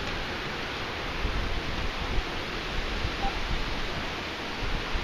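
Steady rain falling on wet ground, an even hiss, with a faint short beep about three seconds in.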